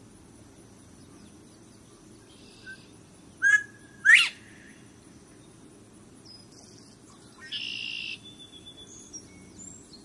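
Northern bobwhite giving its 'bob-white' whistle once: a short first note, then a loud whistle that rises sharply in pitch. A shorter, rougher call follows a few seconds later.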